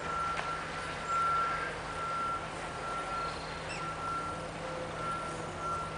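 An electronic beeper sounding a single high-pitched beep over and over, a little faster than once a second, over a low steady hum and background noise.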